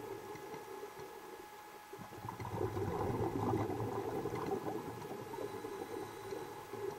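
Exhaust bubbles from a scuba diver's regulator, heard underwater as a bubbling, gurgling rush that swells about two seconds in and fades over the next few seconds as he exhales.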